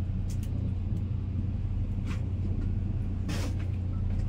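Steady low rumble of a moving vehicle, with a few short hissing sounds, the strongest about three seconds in.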